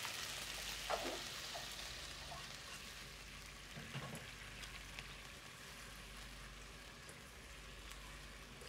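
Faint sizzling of food frying in a pan, slowly dying away, with a few soft clicks.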